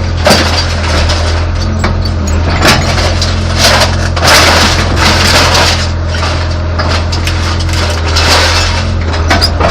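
A Caterpillar excavator's engine running steadily while its bucket and tongs work a three-cylinder two-stroke outboard motor. Metal scrapes and crunches in irregular noisy bursts as the machine tries to rip the flywheel off.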